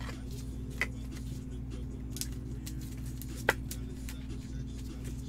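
Hard plastic card holder clicking as gloved hands handle it: two short sharp clicks, a small one just under a second in and a louder one about three and a half seconds in, over a steady low hum.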